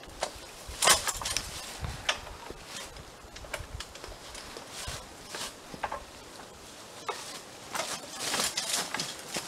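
Crunching footsteps and rustling in dry fallen leaves, with scattered crackles and a few sharp knocks, as a metal ladder tree stand is lifted and stood upright. The loudest knocks come about a second in and again near the end.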